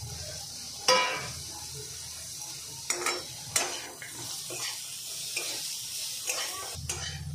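A metal spatula stirs and scrapes chopped coriander, peanuts, green chillies and coconut as they fry in a little oil in a metal kadhai, with a steady sizzling hiss underneath. The spatula knocks sharply on the pan about a second in, knocks twice more around three seconds in, and then clinks and scrapes lightly.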